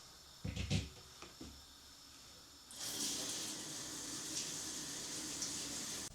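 A couple of light knocks, then water running steadily from a tap, starting about three seconds in and stopping abruptly.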